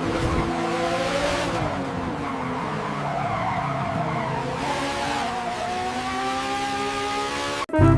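Race car engine running at speed over a rushing noise, its pitch wavering and gliding slowly up and down; it cuts off suddenly just before the end.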